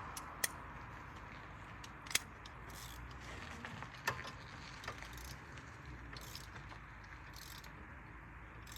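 Faint metal clicks and short rasping runs of a 17 mm wrench tightening the tie rod's castle nut, with a few sharp clinks of tool on metal.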